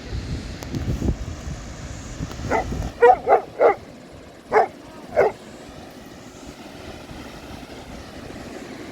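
A Vizsla dog barking in six short, sharp barks, four in a quick run and two more spaced after. Under the first barks there is a low rumble, which then fades to a steady background hiss.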